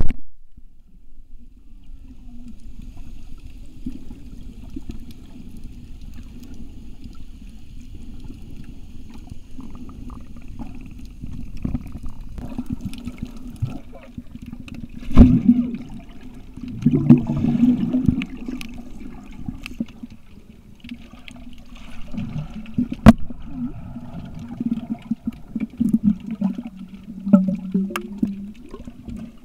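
Muffled underwater sound picked up by a submerged camera: a steady low water rush with gurgling, and a few sharp clicks or knocks, the loudest about halfway through and another about three-quarters through.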